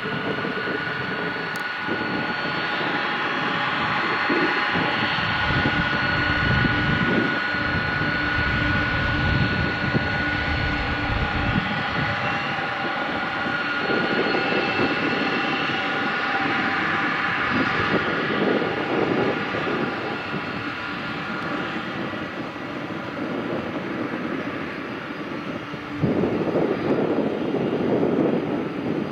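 Boeing 747-400 freighter's four jet engines running at taxi power: a steady high whine over a broad rumble. The rumble grows suddenly louder near the end.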